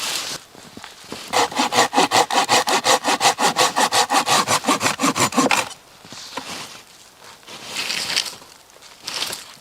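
A saw cutting wood in quick, even strokes for about four seconds, then a few softer scrapes.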